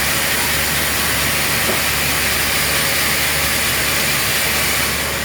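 Steady, loud machinery noise: an even hiss with a low, constant hum underneath, unchanging throughout.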